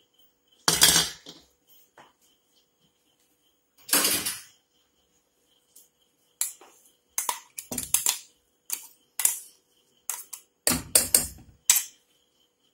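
A steel mixer-grinder jar and spoon knocking and scraping against an aluminium pressure cooker as coconut paste is emptied out. Two short scrapes are followed, about halfway through, by a run of sharp metal taps.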